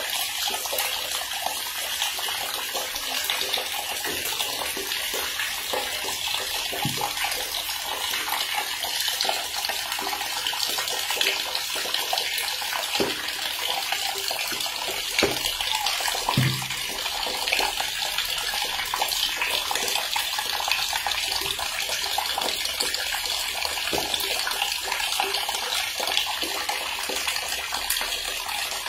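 Water running steadily from a tap into a bathtub, with a few brief splashes.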